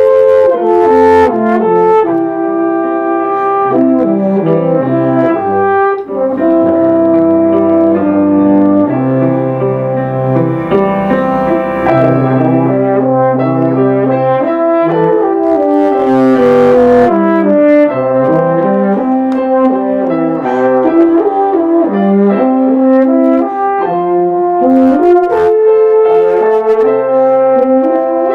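Instrumental trio of euphonium, trumpet and upright piano playing a slow piece together, the brass holding long sustained melody notes over the piano accompaniment.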